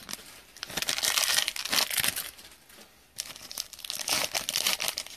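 Foil trading-card pack crinkling as hands handle it and tear it open along the top seam, in two spells of rustling with a brief lull about three seconds in.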